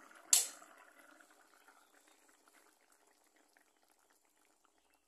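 A gas stove burner being switched off, a short loud burst about a third of a second in, followed by a thick sour curry bubbling in the wok and dying away over the next few seconds as the flame goes out.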